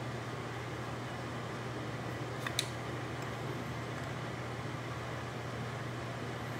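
Steady fan-like hum and hiss of room noise, with two quick clicks close together about two and a half seconds in.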